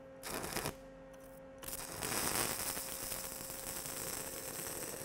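Stick-welding arc from a 6010 electrode on steel pipe: a short sputtering burst as the arc is struck about a quarter second in, then from about a second and a half in the steady, dense crackle of the arc running a root bead. The rod is held in tight and buried in the groove, favoring the bottom bevel.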